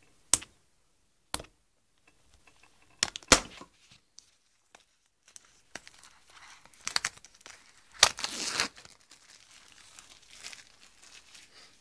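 Plastic shrink-wrap being torn and crinkled off an iPhone box. A few sharp snaps and taps come in the first few seconds, then crinkling, loudest about eight seconds in.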